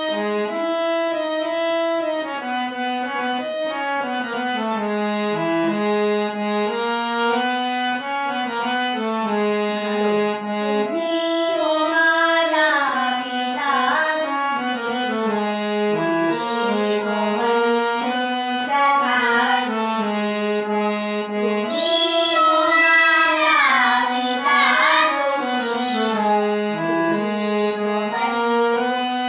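Music of a devotional prayer song: a held, reed-like keyboard melody, with a girl's high singing voice rising over it from about eleven seconds in, strongest near the end.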